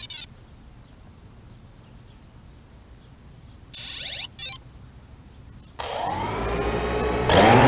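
3DR Solo quadcopter on the ground: a short beep at the start and two more beeps near the middle, then about six seconds in its motors start and spin up with a rising whine that grows louder near the end as it powers up to take off.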